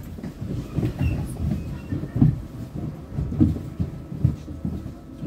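Ride noise inside a moving double-decker bus: a steady low rumble from the engine and road, with irregular knocks and rattles from the bus body about once a second.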